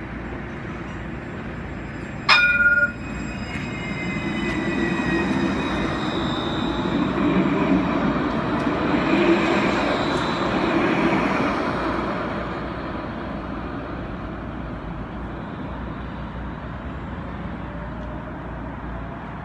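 A city tram gives a short, loud warning signal about two seconds in, with a ring that dies away. Then a tram passes close by, its rumble on the rails swelling and fading over about ten seconds, leaving steady street background.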